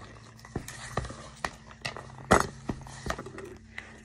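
Irregular light clicks and knocks, about a dozen, the loudest just past halfway, over a steady low hum.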